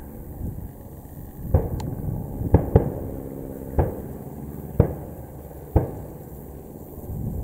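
Six pyrotechnic bangs at an airshow display, going off about a second apart with two in quick succession, over the steady drone of biplane piston engines.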